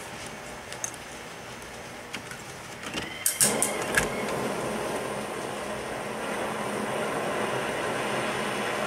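Handheld dab torch lit with a few sharp clicks about three seconds in, then a steady flame hiss as it heats the nail of a glass dab rig.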